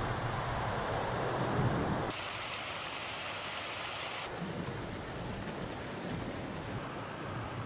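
Shallow mountain stream rushing over rocks, a steady dense rush of water that changes abruptly in tone twice, as the takes switch.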